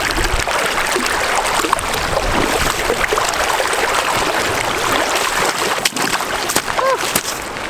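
Rushing water of a shallow, fast river as someone wades across it in boots.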